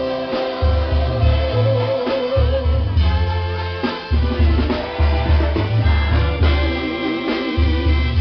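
Live band music: a male lead singer holds long, wavering notes into a handheld microphone over heavy bass and drums, with trumpets in the band.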